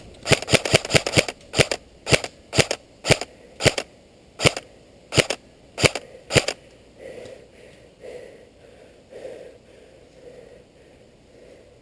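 Airsoft gun firing: a quick string of about six shots, then single shots about every half second, stopping about six and a half seconds in.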